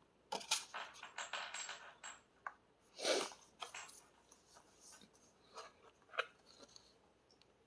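A CD album's paper and cardboard packaging being handled: a run of short rustles and light taps, one louder swishing rustle about three seconds in, then a few faint clicks.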